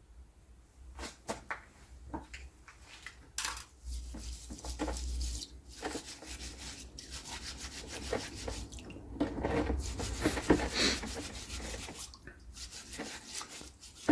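A scrubbing brush rubbing and scraping in irregular strokes over espresso machine boiler parts, working limescale loose from the metal.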